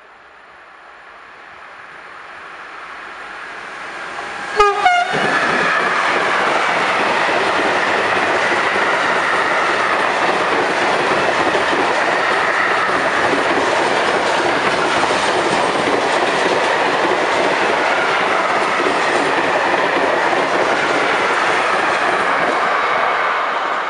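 A freight train of tank wagons approaching and passing at speed close by: a rising rumble, a short horn blast about five seconds in, then the steady loud rolling of the wagons' wheels on the rails, starting to fade at the very end.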